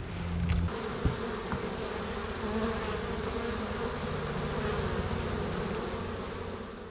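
Honeybees buzzing around an open hive, a steady colony hum, with a couple of short knocks about a second in.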